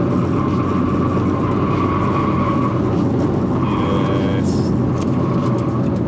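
Renault Clio 172 Cup's 2.0-litre four-cylinder engine and exhaust running steadily on the move, heard from inside a cabin stripped of its carpets and trim. The exhaust and road noise come through loud, like there's a hole in the back.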